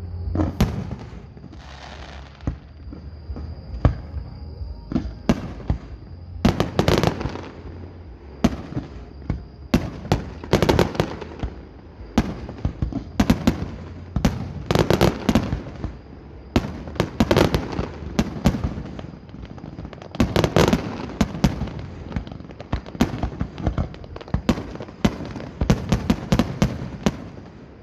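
Fireworks display: aerial shells bursting one after another, with sharp bangs, rumbling booms and bursts of rapid crackling throughout.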